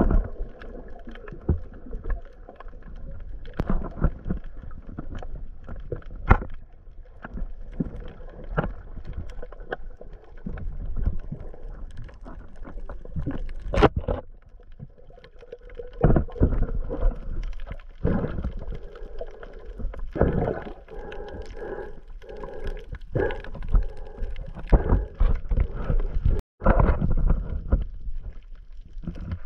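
Muffled underwater noise picked up by a GoPro Hero 8 while snorkeling: water moving against the camera, with many irregular knocks and bumps.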